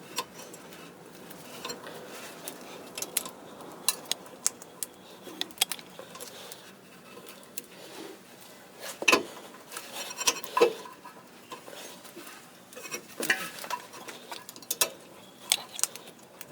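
Irregular metallic clinks and knocks, like hand tools and metal parts being handled, with louder clusters about halfway through and again later on.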